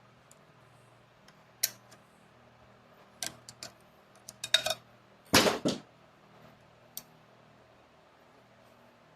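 Sharp metal clicks and clanks of a snap ring and tools against a 4L60E input drum's spring retainer as the snap ring is fought into its groove, in scattered groups with the loudest double clank a little past the middle.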